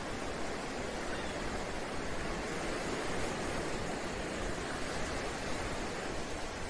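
Ocean waves: a steady rush of surf with no tune or voice, swelling slightly in the middle and easing off toward the end.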